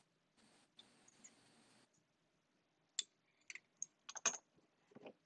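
Faint, scattered small clicks and ticks of fly-tying tools and hands working at the vise while the thread head of the fly is whip-finished. A little under a dozen sharp clicks come in the last two seconds, bunched around four seconds in, after a near-silent start.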